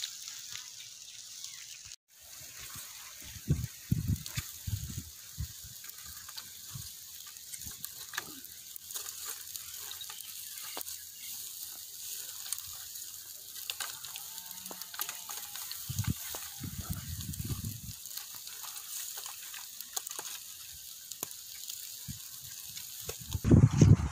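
Beef and vegetables sizzling on a wire grill over charcoal: a steady hiss with scattered crackles and pops. Two short spells of low rumble come in partway through.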